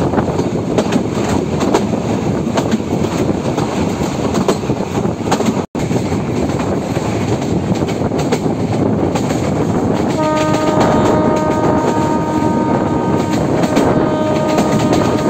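Heritage train running along the track, with loud steady rumbling and rattling from its wheels and coaches. About ten seconds in, the locomotive's horn starts one long steady blast that lasts to the end.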